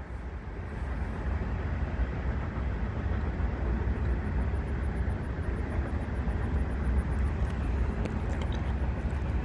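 Union Pacific loaded coal train running past: a steady, deep rumble that swells about a second in and then holds, with a few faint clicks near the end.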